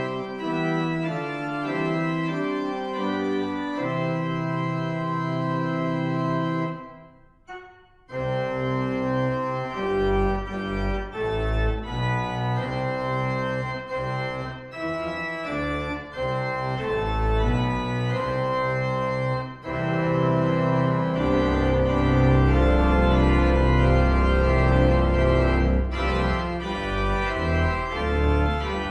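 Organ music in sustained chords. There is a brief pause about seven seconds in, and deep bass pedal notes come in after it, growing strong and steady over the last third.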